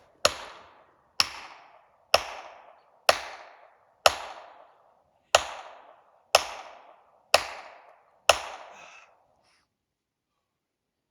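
Wedges being hammered into the back cut of a large tree being felled: nine sharp, ringing strikes about one a second, stopping near the end. The driving is meant to tip a tree left on too deep a hinge.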